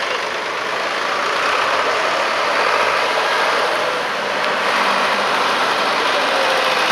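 Vintage tractor engines running steadily as the tractors drive slowly past one after another.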